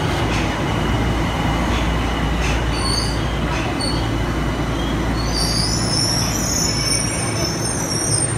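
Tokyo Metro Ginza Line subway train pulling in alongside the platform: a steady rush of wheels on rail with a few clicks in the first four seconds. From about five seconds in, a high wheel squeal sets in as the train slows.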